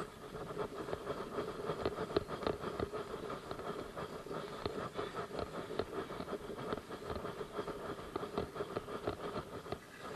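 Fishing reel's drag clicking in a fast, uneven run as a hooked fish pulls line off the spool, with the reel being cranked.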